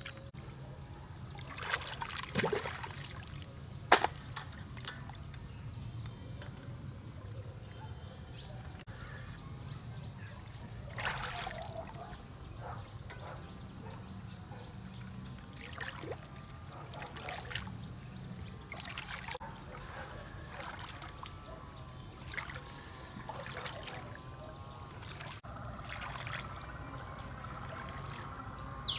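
Water trickling, with occasional sloshing splashes about 2, 11 and 16–18 seconds in, over a steady low hum.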